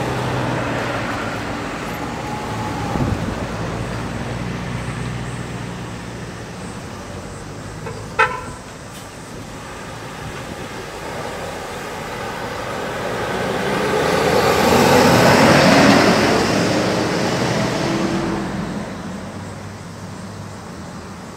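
Road traffic: engines running steadily, a short horn toot about eight seconds in, then a vehicle passing close, swelling to its loudest about fifteen seconds in and fading away.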